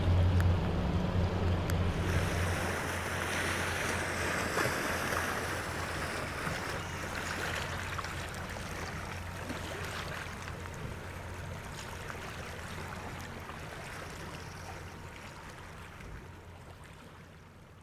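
A low hum from the passing cruise ship for the first two or three seconds, then a steady wash of river waves lapping at the bank. The whole sound fades out gradually.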